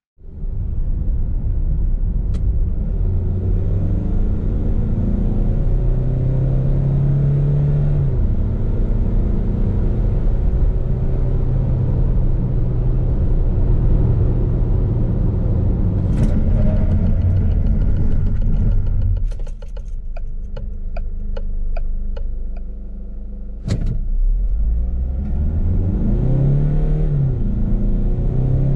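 2.0-litre four-cylinder turbo-diesel of a Peugeot Expert van, heard from inside the cab, running steadily under load. About two-thirds of the way through it drops to a quieter stretch with a run of light ticks, then the van pulls away hard, revs climbing and falling back at gear changes of its six-speed automatic.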